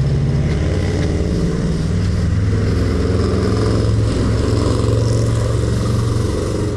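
A motor engine running steadily, a low hum that drops slightly in pitch about half a second in.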